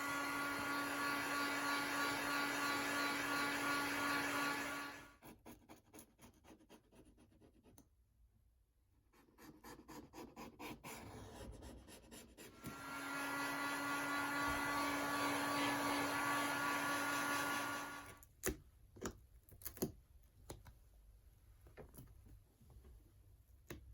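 Small electric motor running with a steady hum and hiss, in two runs of about five seconds each. Light clicks and taps of handling come between and after the runs.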